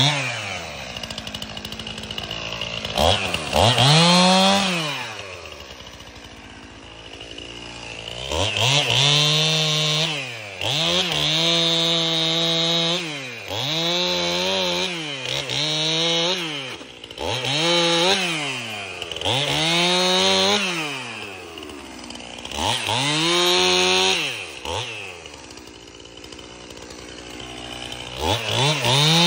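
Two-stroke chainsaw cutting a felled pine log, revved to full throttle and dropping back to idle about nine times, each burst lasting a second or two with the pitch falling as it comes off the throttle.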